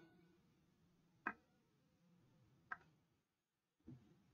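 Chalk tapping against a chalkboard twice, about a second and a half apart, then a softer low knock near the end.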